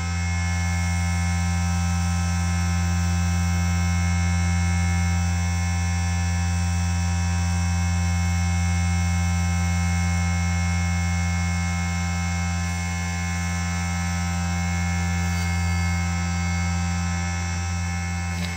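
Motors of a converted CNC1610 mini lathe running: a steady hum with several steady whining tones above it.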